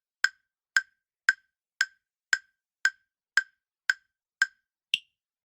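Quiz countdown-timer sound effect: sharp, clock-like ticks at about two a second, ten in all, the last one higher in pitch, ending the time allowed to answer.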